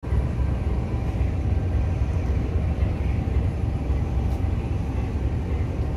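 Diesel locomotive engine running steadily, heard inside the cab as an even low rumble with a slight pulse.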